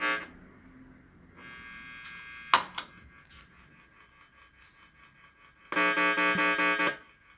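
Electric guitar chords played through an amp and an analog tremolo pedal, the sound pulsing about five times a second and cutting off sharply when the noise suppressor closes; a louder chord rings near the end. Between the chords there are a sharp double click and a faint rhythmic ticking, the normal interference of an analog tremolo.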